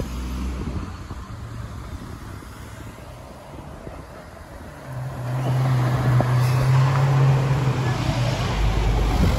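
Ferrari 488 Spider's twin-turbo V8 running with a steady low drone as the car drives slowly past over city traffic. It grows louder about five seconds in and holds an even pitch without revving.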